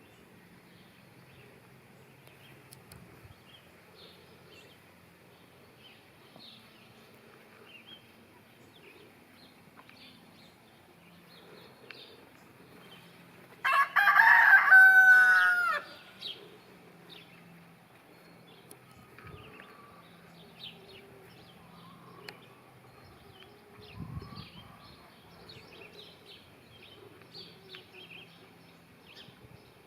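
A rooster crows once, loud and about two seconds long, around the middle, the call dropping in pitch at its end. Faint scattered bird chirps and small ticks sound before and after.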